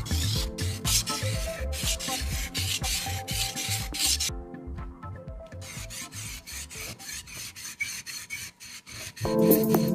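Rapid, repeated rasping strokes of metal being worked by hand on a rusty sickle blade, breaking off briefly about halfway. Background music runs underneath and gets louder near the end.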